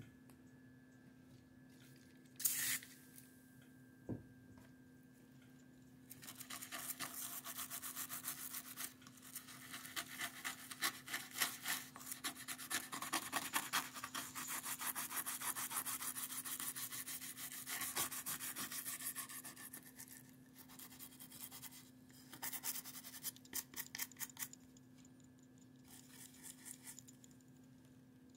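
Rubbing on a 1941 Argus AA camera as it is cleaned: a long run of rapid scrubbing strokes begins about six seconds in and dies away near the end, after a couple of small knocks.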